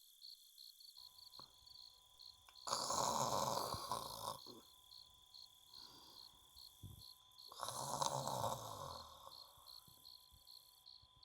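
A person's two long, breathy sighs or groans, one about three seconds in and one about eight seconds in, the sound of frustration at unfinished work. Under them, faint crickets chirp in a steady rhythm, about three chirps a second.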